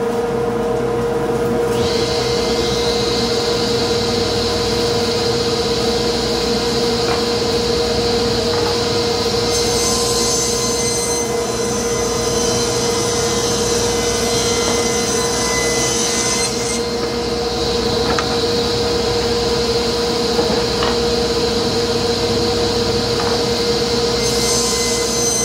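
Table saw running steadily with a constant hum while boards are ripped along the fence; the cutting adds a higher hiss from about two seconds in, loudest in a stretch from about ten to seventeen seconds and again near the end.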